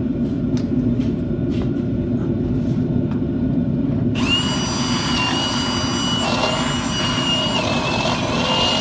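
Drill spinning a bit to ream out a dirty, rusty sway bar bracket on a Jeep axle. Its motor whine starts about four seconds in and dips slightly in pitch now and then as the bit bites. Before that there are a few clicks, and a steady low hum runs underneath.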